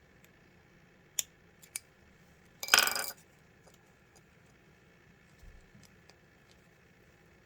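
Small metal clicks from a zipper pull being worked onto zipper tape by hand. Two or three sharp clicks come about a second in, then a short rattling scrape near three seconds in, as the pull sticks on the tape rather than popping on.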